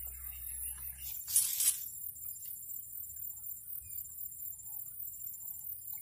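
Steady, high-pitched chirring of insects in the swamp grass, with a short rustling swish about a second and a half in.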